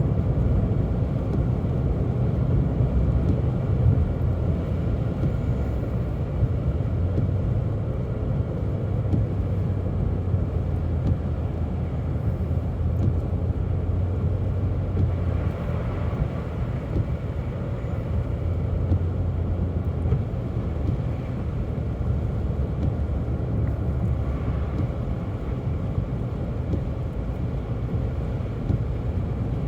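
Steady cabin noise of a car being driven: a low rumble of engine and tyres on the road, even throughout.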